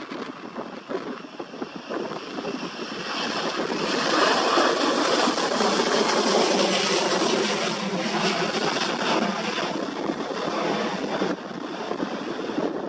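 Aircraft engine noise swelling as the plane passes, loudest about four to seven seconds in, then slowly fading.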